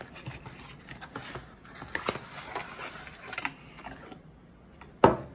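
Cardboard knife box being opened: flaps and paper packaging rustling and scraping as a knife in a leather sheath is slid out, with a single sharp knock about five seconds in.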